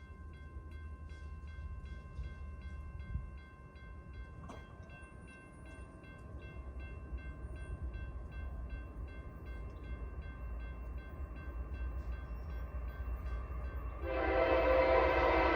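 A bell rings in quick, even strikes over a low rumble. Near the end, BNSF locomotive 5890's air horn comes in loud, sounding several notes at once as a chord, and keeps blowing.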